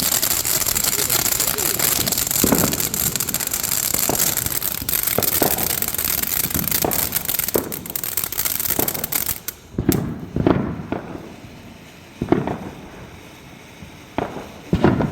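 Fireworks going off: a dense crackle with pops and bangs mixed in for most of the first ten seconds, then it stops suddenly. After that come single bangs, a second or two apart.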